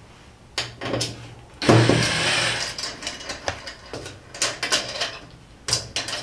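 Cordless drill running in short bursts on a small screw at a cabinet door fitting: a brief whir, a longer run of about a second, and another short whir near the end, with light clicks and handling knocks in between.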